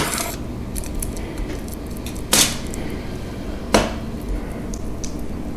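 A metal spoon clinks sharply against a small bowl a few times, loudest about two and a half and four seconds in, between soft scraping and smearing as tomato-paste sauce is spooned and spread over a raw meatloaf on tin foil.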